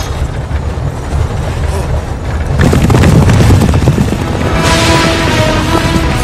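Film soundtrack: dramatic music with heavy low booms, growing louder about two and a half seconds in.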